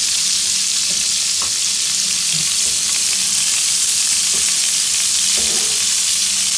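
Butter and oil sizzling steadily in a hot wok.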